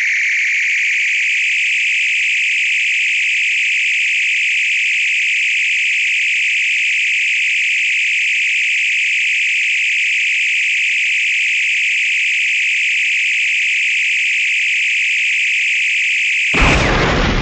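Star Trek original-series hand phaser on overload: a loud, high, fast-pulsing whine that climbs slightly over the first couple of seconds and then holds steady. Near the end it breaks off into a sudden explosion with a deep rumble as the overloaded phaser blows.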